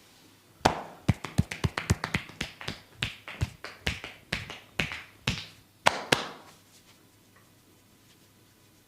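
Rapid series of sharp hand slaps and taps from a percussive massage, about four strikes a second. The strikes stop suddenly a little after six seconds in.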